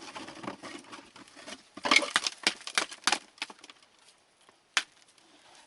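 Rummaging through dug-up scrap-metal finds: rustling, with a quick run of short knocks and scrapes about two to three seconds in and one sharp click near the end.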